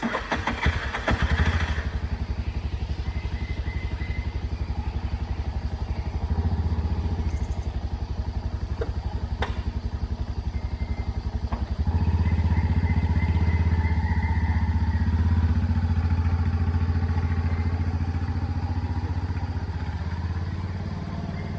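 A small engine running steadily at idle with a fast, even putter; it gets louder about twelve seconds in.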